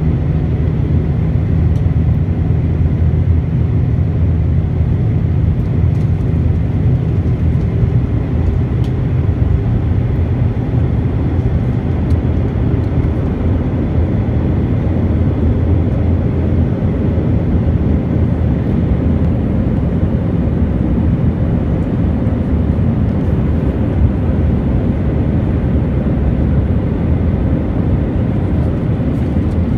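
Steady cabin noise of an Airbus A319 in flight, heard inside the cabin: a low engine and airflow rumble with a faint steady whine above it. The deepest part of the rumble eases a little about eight seconds in.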